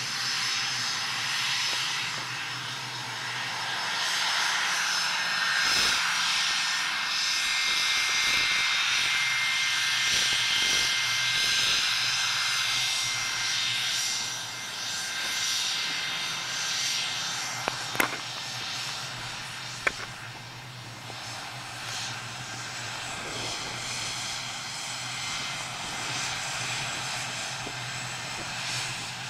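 Boeing 717's twin Rolls-Royce BR715 turbofans at taxi power as the jet rolls past: a steady rushing hiss over a low hum, with a thin high whine through the first half. Two sharp clicks about two seconds apart a little past the middle.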